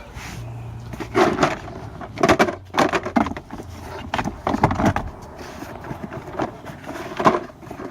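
Irregular knocks and clunks of tools and objects being handled and set down, a dozen or so short hits spread unevenly, with a low hum under the first few seconds.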